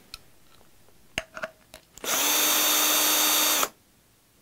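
Cordless electric screwdriver running at a steady pitch for about a second and a half, loosening a terminal screw to disconnect a motor lead. A few light clicks come just before it.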